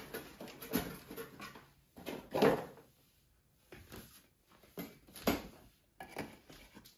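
Handling noises: a few knocks, taps and rustles as a light bulb is taken from its cardboard box and fitted into a softbox lamp's socket, the loudest knock about two and a half seconds in.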